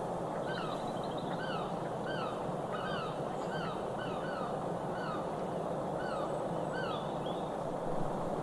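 A bird calling over and over: short, clipped chirps, roughly two a second, against a steady outdoor noise.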